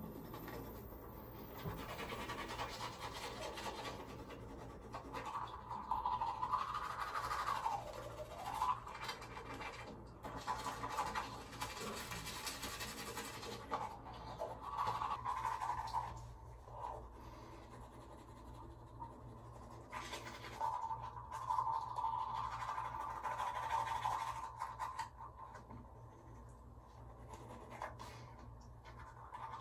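Teeth being brushed with a manual toothbrush: soft, uneven scratching of the bristles, under faint music with sliding notes.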